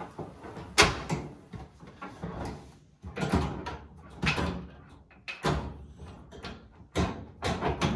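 Irregular knocks and clunks from the panels and parts of an LG dryer being handled and fitted during repair, the loudest about a second in.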